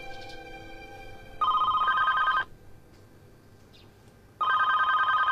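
Telephone ringing: two electronic warbling rings, each about a second long and about three seconds apart.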